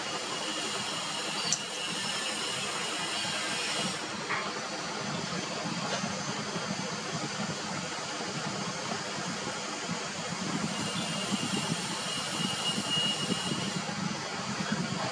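Steady hissing background noise with no clear events in it.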